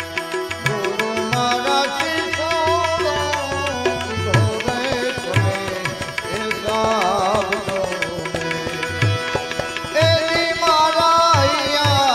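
Bhajan music: harmonium chords and melody over a steady hand-drum beat, with a wavering sung line in places that grows louder about ten seconds in.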